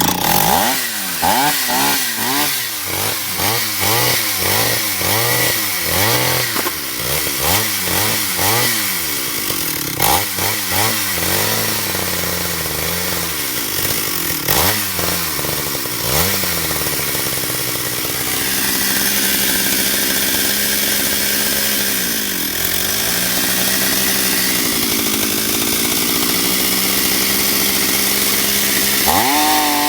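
Stihl 031AV two-stroke chainsaw starting up and being revved in quick repeated throttle blips. It then settles to a steadier, lower-pitched run for about ten seconds before revving high again near the end. It is running on a newly fitted carburetor, meant to cure a start-then-stall problem.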